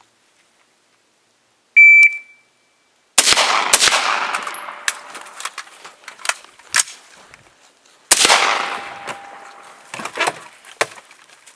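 A shot-timer beep, one short high tone, then gunfire at a firing range. Two loud shots with long echoing tails about a second and five seconds after the beep, among a scatter of sharper, quicker cracks.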